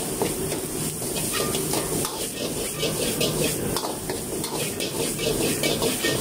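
Egg fried rice sizzling in oil in a wok, with a metal ladle scraping and knocking against the wok in quick repeated strokes, about three to four a second, as the rice is stir-fried and tossed.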